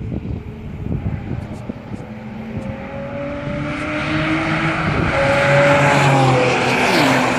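A Porsche sports car accelerating toward the listener at speed, its engine note climbing and growing louder as it nears, then dropping sharply in pitch as it passes near the end. Wind buffets the microphone in the first couple of seconds.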